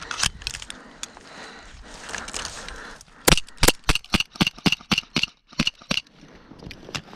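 Airsoft gun firing a rapid, irregular string of about fifteen sharp shots over under three seconds, starting about three seconds in. Before the shots there is faint rustling of movement.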